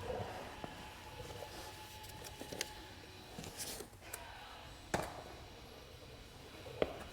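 Faint rustling with scattered light clicks and knocks of small parts being handled, with a sharper knock about five seconds in and another near the end.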